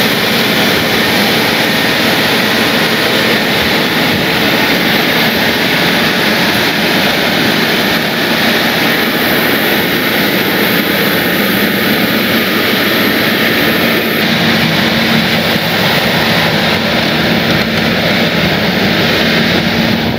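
Large diesel engine of a tracked trencher running hard, a loud steady drone with a constant low hum.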